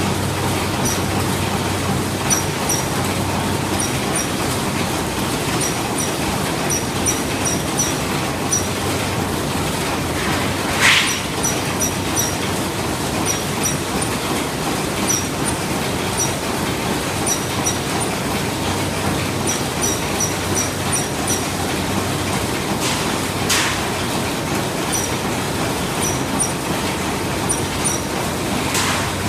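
Ham sausage machine running: a steady mechanical din over a low drone, with small high clicks in quick clusters and three short hisses.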